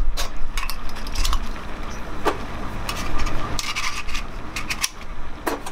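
Scattered light metal clinks and scrapes as a small alcohol burner and a metal ring are picked up and handled on a metal stove board.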